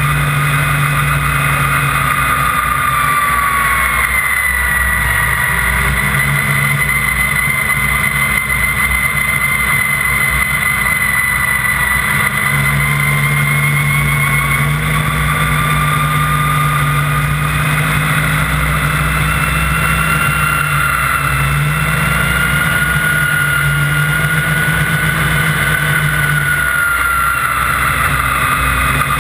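Snowmobile engine running at speed, its whine drifting slowly up and down in pitch as the throttle changes, with a steady rush of wind and spray underneath.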